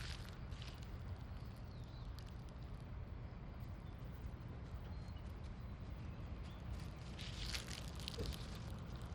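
Steady low background rumble of outdoor noise, with a few faint scuffs or rustles near the start and again about seven and a half seconds in.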